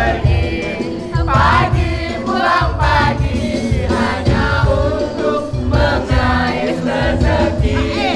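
Music with a heavy, steady beat, and a group of voices singing loudly along with it.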